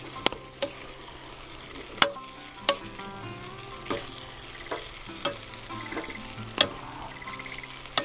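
A utensil stirring a thick vegetable-and-seafood sauce in a wok, knocking and scraping sharply against the pan about ten times at uneven intervals.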